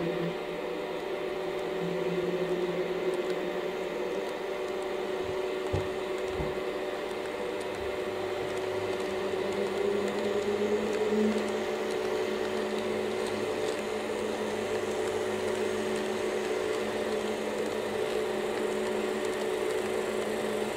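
HO-gauge model train with an EF64 electric locomotive and 115-series cars running on the track: a steady electric motor hum with a whine whose pitch shifts slightly, and a few short clicks about six seconds in.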